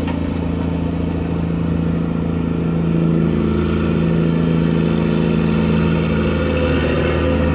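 Diesel machinery of a gut ship (aggregates carrier) running steadily during cargo handling, a little louder from about three seconds in, with a higher tone that rises near the end.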